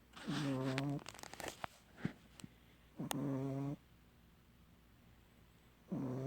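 Pug snoring: three buzzing snores under a second long, about three seconds apart, with a run of rattling snorts and clicks after the first.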